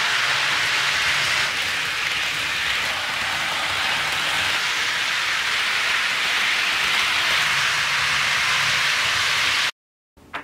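HO-scale model trains rolling along sectional track, a steady rushing of small metal wheels on the rails with a faint motor hum underneath. It cuts off suddenly near the end.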